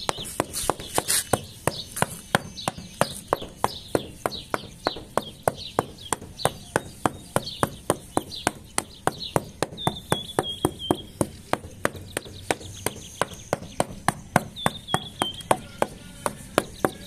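A steady, even run of sharp clicks, about four a second, with a few short falling bird chirps now and then.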